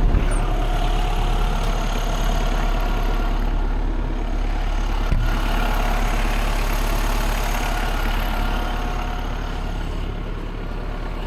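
Kubota tractor's diesel engine idling steadily, with a single short knock about five seconds in.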